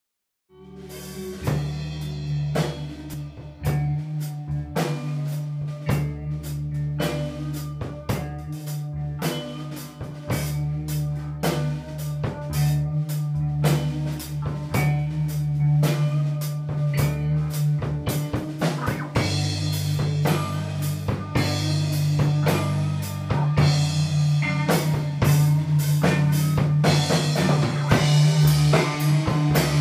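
Band rehearsal recording used as a soundtrack: a drum kit keeps a steady beat over sustained bass notes. The music starts about half a second in and grows louder and fuller about two-thirds of the way through.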